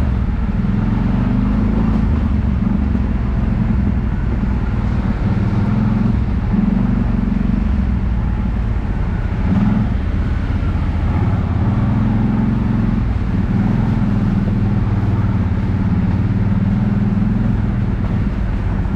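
ATV engine running steadily under way, its pitch rising and falling a little with the throttle.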